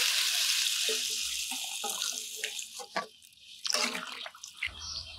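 Boiled water poured from a pot in a steady stream onto fried rice in a metal pan, splashing; the pour is loudest at first and tapers off after about two and a half seconds, followed by a few light knocks.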